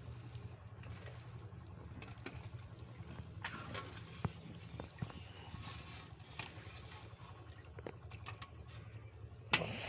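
Puris deep-frying in hot oil: a faint, steady sizzle with occasional light clicks over a low steady hum, and a sharper knock near the end.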